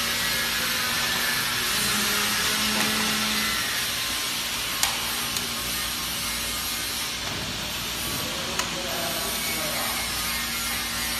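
Steady background hiss with a few sharp clicks, about five seconds in and again near eight and a half seconds, as the machine's chain links are handled and fitted by hand.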